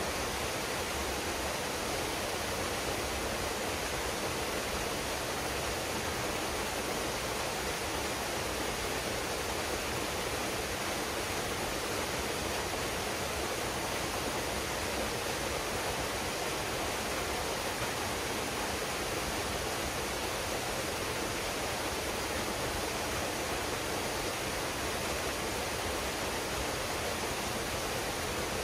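Waterfall pouring steadily into a pool, a constant even rush of water.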